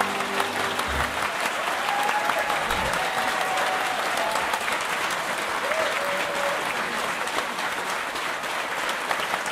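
An audience applauding in a dense, steady crackle as the brass band's last held chord dies away in the first second. A few cheers rise above the clapping.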